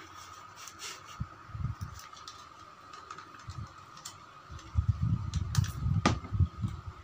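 Hands taping a plastic hair-clipper body: packing tape crackling as it peels off the roll and wraps round, with clicks and dull knocks of handling. The knocks are loudest and thickest over the last two seconds. A faint steady high hum runs underneath.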